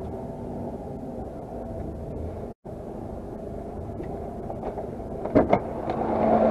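Mercedes-Benz Actros 480 truck's diesel engine running steadily at low speed. The sound cuts out for a moment about two and a half seconds in, two sharp knocks come about five seconds in, and the engine sound gets louder near the end.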